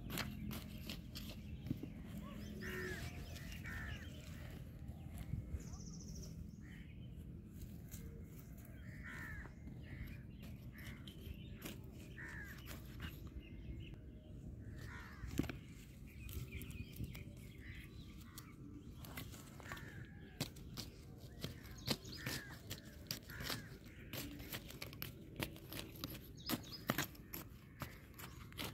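A hand weeding hoe (khurpi) chops and scrapes through dry, cloddy soil in short sharp clicks, coming thicker and louder in the last several seconds. Birds call in short repeated calls in the background.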